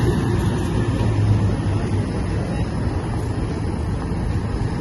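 Steady rumble of vehicle engines and outdoor noise as a convoy of pickup trucks and SUVs drives slowly through a gate.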